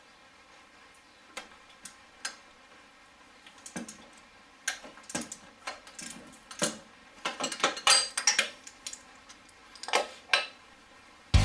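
Hand tools and metal engine parts clicking and clinking as bolts are worked loose in the engine bay: scattered sharp clicks, with a quick run of them about two-thirds of the way in. Music starts abruptly at the very end.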